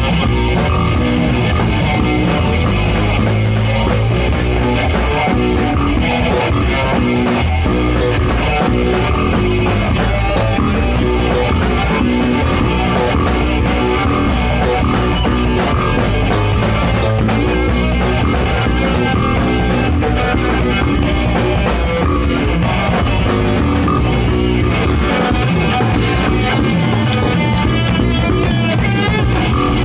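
Rock band playing loud and without a break: electric guitars over a drum kit.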